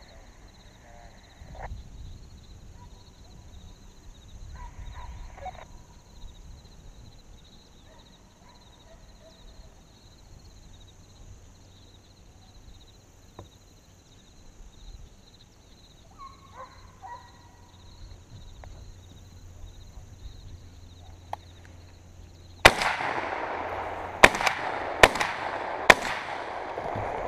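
Shotgun fired four times from a deer stand, the first shot about 22 seconds in and the next three close together about a second apart. Before the shots it is quiet apart from a few faint, brief calls of distant hounds running a deer.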